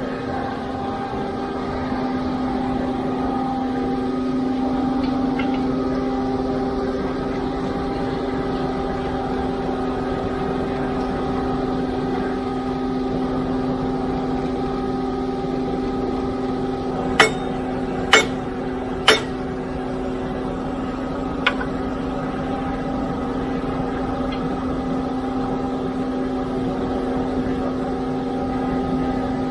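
Diesel engines of a concrete pump truck and ready-mix truck running with a steady hum. Past the middle come three sharp metal clanks about a second apart, then one more: a steel bar knocking against the pump's outlet elbow and clamp as a worker levers at it.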